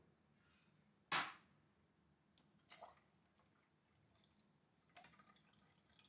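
Juice trickling from a cold-press juicer's spout into a pitcher. There is one sharp knock about a second in and fainter knocks later.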